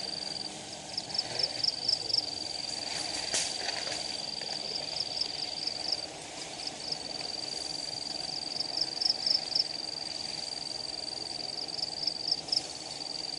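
A forest insect's steady high-pitched shrill, broken every few seconds by runs of quick chirps, over a low hum from the giant honeybee (Apis dorsata) swarm. A single sharp crack about three seconds in.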